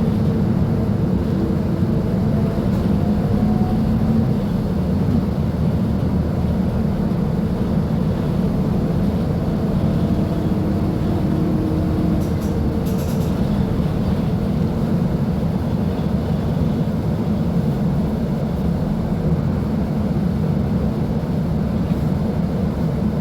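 Diesel engine of a Mercedes-Benz OF-1724L Bluetec 5 bus running steadily, a low even rumble with no change in pitch.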